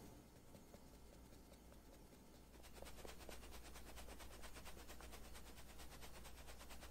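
A fine mesh sieve being shaken to sift a flour blend, heard as a faint, rapid, even tapping that starts about three seconds in, after near silence.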